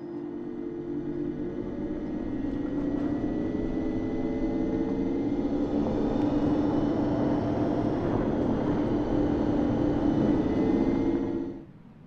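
Alpine A290 electric hatchback's exterior low-speed pedestrian warning sound, used below 30 km/h: a synthetic hum made of several steady tones. It grows louder over the first half, holds, and cuts off suddenly near the end.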